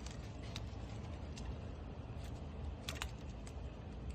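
Faint scattered plastic clicks and rattles of a fuel-injector wiring connector being handled and unplugged, including a quick double click about three seconds in, over a low steady hum.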